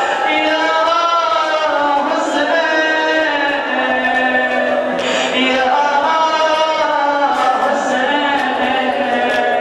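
A single voice chanting a slow, melodic lament, holding long notes that waver slightly in pitch, with brief breaths between phrases.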